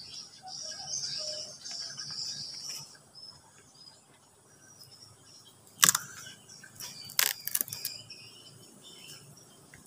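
High-pitched insect chirring for the first three seconds, then a sharp knock about six seconds in and a quick cluster of clicks and knocks a second later, from the handheld camera being handled while climbing among branches.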